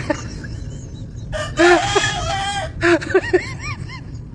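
Rooster crowing: one long crow about a second and a half in, followed by a quick run of short clucking calls.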